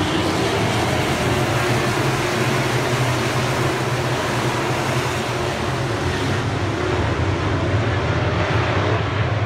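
A pack of dirt-track modified race cars racing around the oval, their V8 engines blending into one steady, loud drone.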